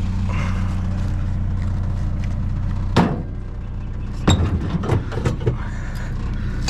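Truck engine idling steadily, then a sharp slam about three seconds in, after which the engine hum is lower and several knocks and rattles follow.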